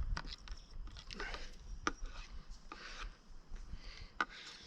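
A drink being stirred in a cup, with scattered light clicks of the stirrer against the cup and soft scraping.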